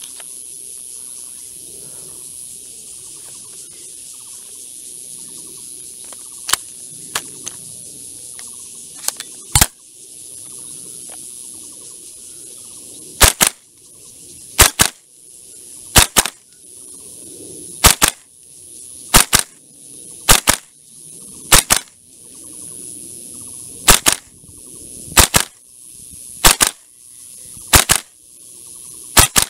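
VFC HK416D gas-blowback airsoft rifle fired in single shots. There is one shot about ten seconds in, then a steady string of about a dozen sharp shots, roughly one every 1.3 seconds, each a quick double crack. A steady high insect buzz runs underneath.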